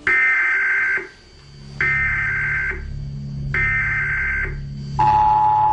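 Emergency Alert System signal: three short warbling data bursts, about a second each, then about five seconds in the steady two-tone attention signal begins. A low steady drone runs underneath.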